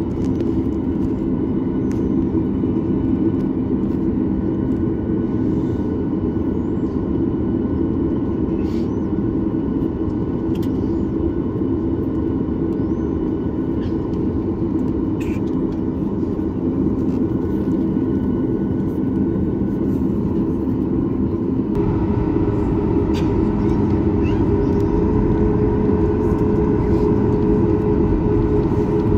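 Steady drone inside the cabin of a Boeing 737 MAX 8 with its CFM LEAP-1B engines running on the ground. About two-thirds of the way through a higher steady tone joins and the drone grows slightly louder.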